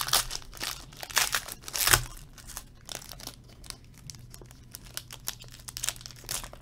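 Foil wrapper of a trading-card pack being torn open and crinkled in the hands: a quick run of crackles, loudest about two seconds in, then lighter crinkling as the cards come out.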